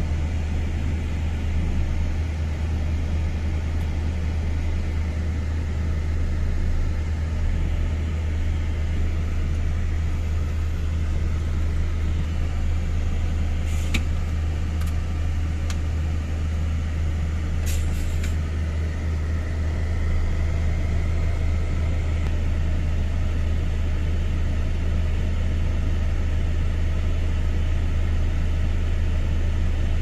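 Vehicle engine running steadily, heard from inside the cab as a deep, unbroken drone. A few sharp clicks come around the middle.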